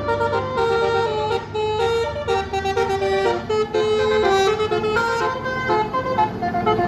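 Bus 'telolet basuri' melody horn playing a quick run of changing notes, a tune rather than a plain honk, over the low rumble of the bus.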